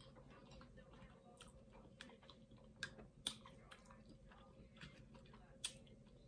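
Quiet chewing of food, with a few sharp clicks of a fork against plastic takeout containers.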